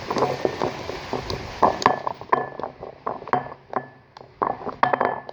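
Small utensil clinking against dishes: an irregular run of sharp taps, some with a brief ring, coming thicker near the end.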